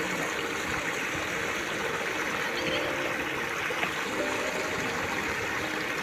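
Shallow stream rushing steadily over a row of stones, white water churning through a small riffle.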